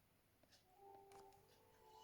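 Near silence: room tone with a few faint clicks, and faint held tones at several pitches coming in about half a second in.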